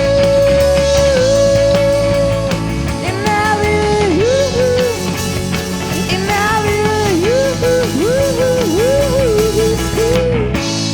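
Indie rock band playing live with drums, bass and guitars, a long held melody line bending in pitch over the top. The band stops together near the end, leaving a guitar ringing on.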